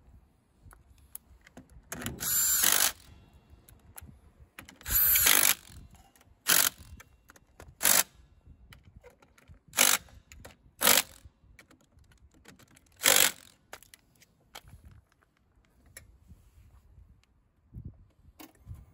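Cordless power driver spinning bolts into a scooter's engine casing in short bursts: two longer runs about two and five seconds in, then five brief ones.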